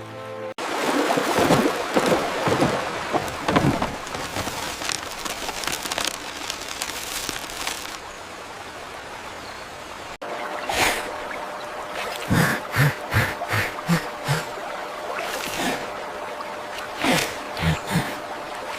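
Running water as a steady rushing noise, then after a cut a run of short sharp sounds over the water in the second half.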